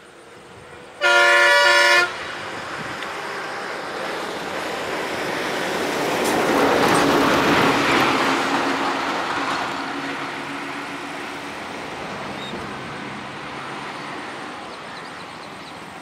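A vehicle horn sounds once for about a second, several pitches blown together, then the noise of a passing vehicle rises to a peak about halfway through and slowly fades away.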